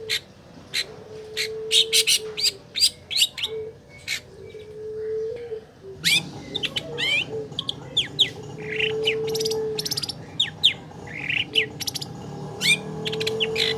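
Long-tailed shrike (cendet) song: a rapid series of sharp, high, downward-sweeping chirps and calls, played as a lure to set off a quiet caged shrike. A faint low hum comes and goes underneath.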